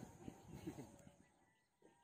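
Near silence: faint outdoor ambience with a few faint short sounds in the first second that die away.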